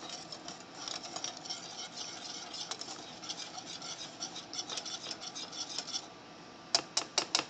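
Wire whisk stirring a thickening white cream sauce in a stainless steel saucepan: a fast, steady patter of small scrapes and clicks against the pan. Near the end come about five sharp metal clinks.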